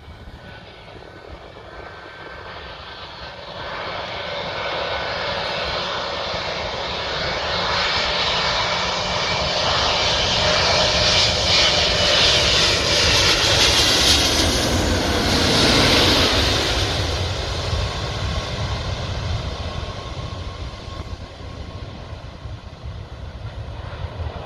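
A British Airways Boeing 777's twin jet engines on landing approach, growing steadily louder as it comes in low overhead. It peaks with a falling pitch as it passes, then fades as it lands on the runway. A low wind rumble on the microphone runs throughout.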